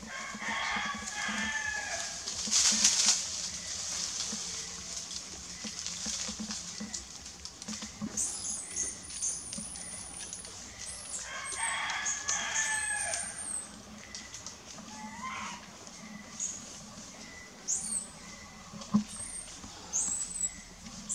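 A rooster crowing twice, about ten seconds apart, each crow lasting about two seconds. Short, very high, thin bird chirps come in from about eight seconds on.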